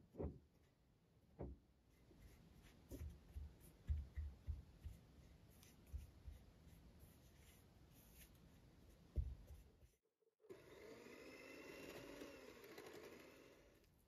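Silicone spatula mashing softened butter and icing sugar in a glass bowl: soft knocks and short scrapes against the glass. About ten seconds in it changes to a steadier smearing scrape as the butter is creamed smooth.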